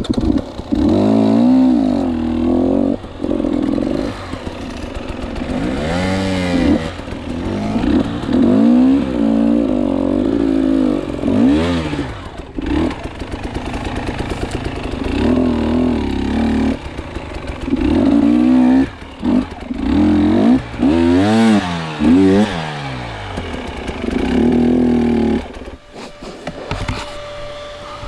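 KTM 300 two-stroke enduro motorcycle engine revving up and down in repeated bursts of throttle while riding and climbing a rough trail, with brief lulls in between.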